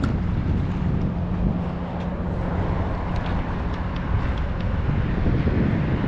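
Wind buffeting the microphone as a dense low rumble, with a faint steady low hum under it that fades about four seconds in.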